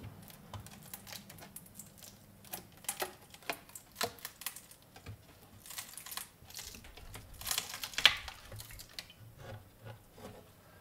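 Pressed-wood drawer being pulled apart by hand: irregular small clicks, creaks and snaps as its joints give way, with a louder cluster of cracks about eight seconds in.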